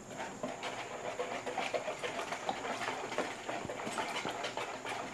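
A small wire whisk beating a thin barbecue sauce in a mixing bowl: a rapid, steady run of light clicks as the wires strike the bowl, with the liquid swishing.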